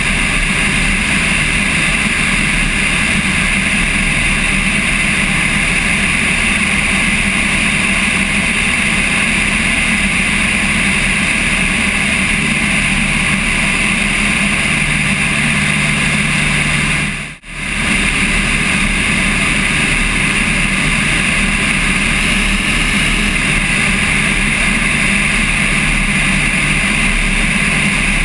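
Steady loud rush of wind over a wing-strut-mounted camera on a single-engine Cessna in flight, mixed with the plane's engine drone. The sound drops out for a split second about two-thirds of the way through, then resumes unchanged.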